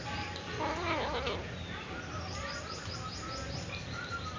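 Small birds chirping in quick repeated series over a steady low background hum. About a second in there is a brief, louder call with a wavering pitch.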